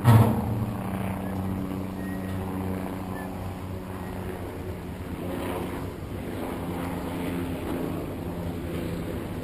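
A boat engine runs steadily with a low hum that eases off about halfway through and builds again later, over wind and water noise. A sharp thump sounds right at the start.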